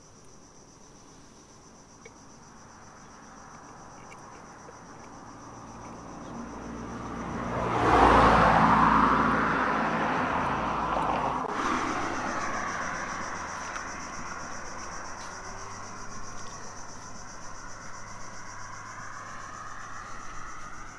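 A road vehicle passing close by on the bridge: a rush of tyre and engine noise that builds slowly, peaks about eight seconds in, and then fades away gradually.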